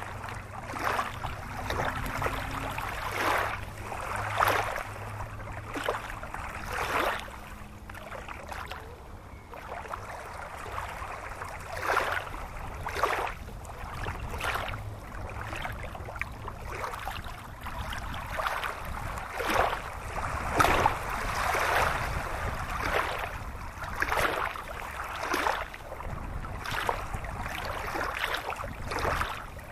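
Shallow stream running over rocks, with repeated splashing surges every second or two.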